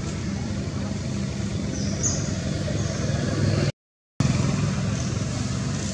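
Steady low engine hum of a nearby vehicle, with the sound dropping out completely for about half a second two-thirds of the way through.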